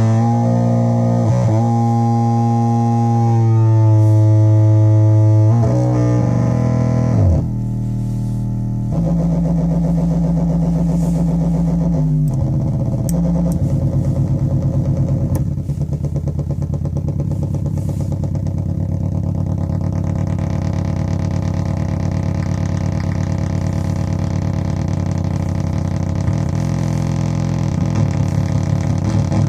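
Metsään Dirty Drone [anarchy] vers2.1 drone synth, three interacting triangle-wave oscillators, playing a pitched drone whose tones step and slide. About eight seconds in it changes to a dense, rapidly pulsing buzz that carries on steadily.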